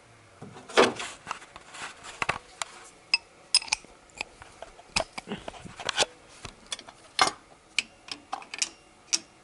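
Steel hand tools clinking: sockets and a wrench knocking against each other and against metal as they are picked up and tried on the cylinder head bolts. Irregular sharp clinks, more than a dozen, scattered throughout.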